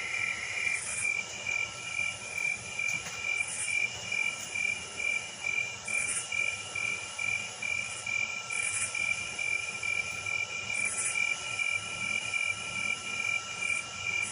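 Crickets chirping in an even, rapid rhythm.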